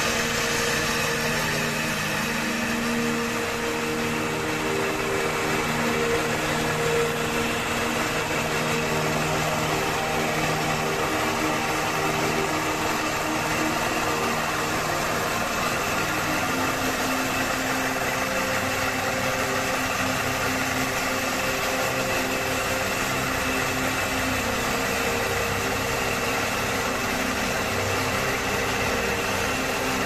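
A machine's engine running steadily over a constant noisy hiss, its pitch shifting a little about halfway through.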